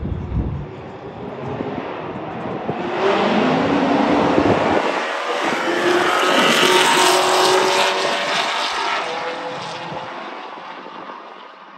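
Race cars at full throttle, engine pitch rising as they accelerate, growing louder as they pass and then fading into the distance.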